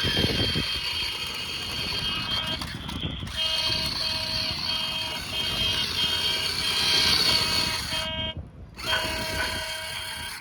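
Remote-control monster truck running: a steady high whine of several fixed tones with a lower beep pulsing on and off about twice a second, over a rough low rustling rumble. The sound cuts out for about half a second near the end.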